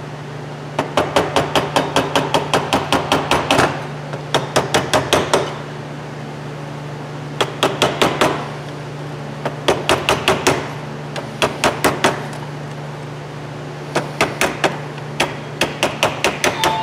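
Small hammer tapping on the rusty steel housing of a blower motor to knock the crimped motor apart. The blows come in quick runs of about five a second, with short pauses between runs, over a steady low hum.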